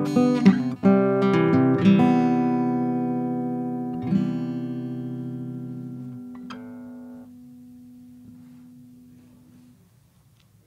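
Acoustic guitar ending a tune: a few last strummed chords, then a final chord left ringing and slowly dying away over several seconds, with a light ping about six and a half seconds in.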